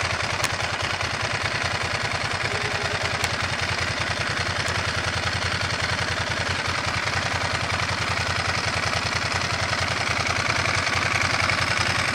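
Motorcycle engine idling with a steady, even pulse, getting a little louder near the end.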